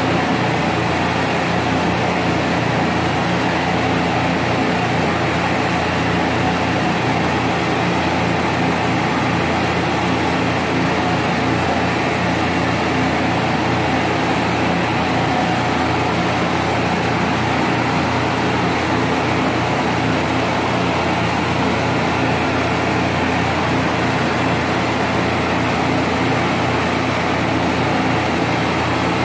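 Gas torch flame burning steadily against a bronze sculpture, a constant rushing noise that does not change, as the metal is heated to take a patina.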